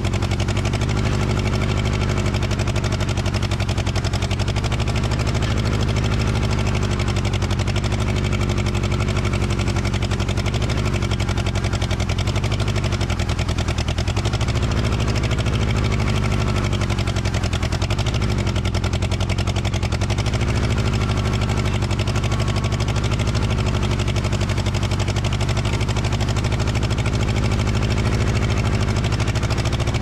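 Gehl 4400 skid steer's gasoline engine running steadily while driving, with a slight miss: one cylinder fires only now and then after the engine was flooded, and the operator thinks it may need a new spark plug.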